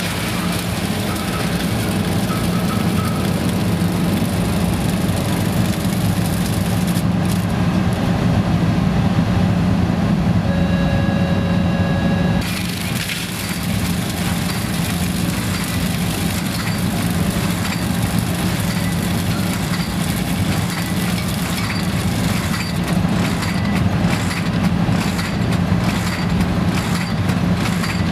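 Die-cutter waste extraction and shredding system running, with a loud steady machine hum. Near the end comes a fast run of cracks and snaps as cardboard waste is shredded. A little before halfway, a steady tone sounds for about two seconds.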